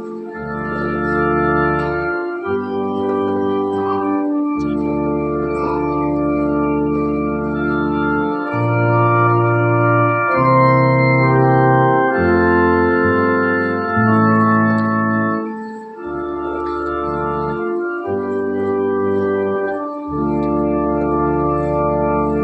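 Organ playing slow, sustained chords that change every second or two, with no singing over it.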